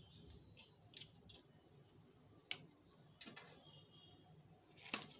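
Scattered faint clicks and taps from handling a plastic bottle of Frooti: the cap twisted open and the bottle set down, with a sharper tap about halfway through and the loudest one near the end.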